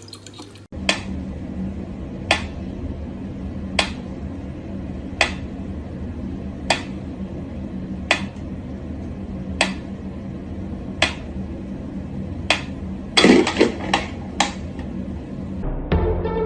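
Sharp taps repeating evenly about every second and a half over a steady low hum, with a quick cluster of knocks near the end.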